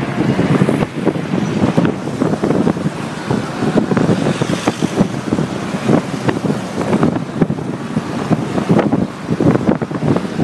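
Wind buffeting the microphone in uneven gusts from inside a moving car, over the car's running engine and road noise.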